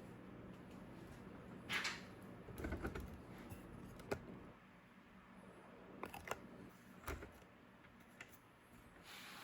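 Scattered light clicks and taps with a few short rustles, the loudest a rustle about two seconds in and a sharp click about four seconds in, over a low steady hum.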